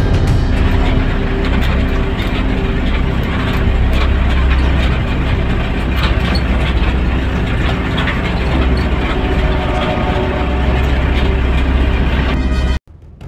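Vehicle driving along a rough dirt track, heard from inside the cabin: a steady low engine rumble with scattered rattles and knocks from the bumps. The sound cuts off abruptly near the end.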